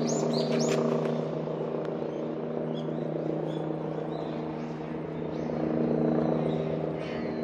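Steady engine drone, a constant low hum with overtones that swells slightly about six seconds in. Small birds chirp during the first second.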